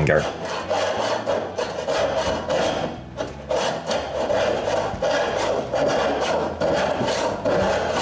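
Hand saw cutting through a carved walnut leg in steady back-and-forth strokes, sawing off one of the carved toes.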